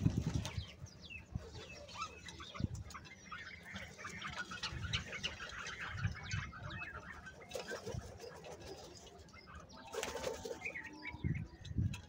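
A flock of house crows feeding and calling, giving many short, scattered calls, with occasional low thumps among them. A louder, harsher call comes about ten seconds in.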